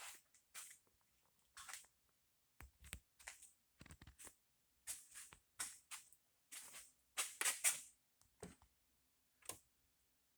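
Short, irregular hissing and scratching strokes, about fifteen in ten seconds, from dust being cleaned out of an AV receiver.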